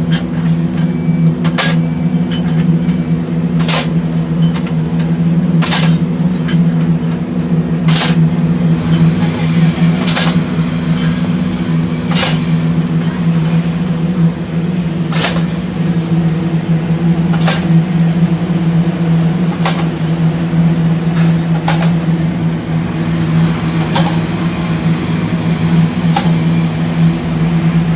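A heavy machine running with a steady low drone, and a sharp clank about every two seconds.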